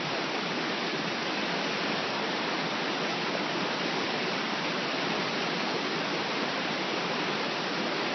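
Whitewater rapids of a rocky mountain river rushing: a steady, unbroken roar of water.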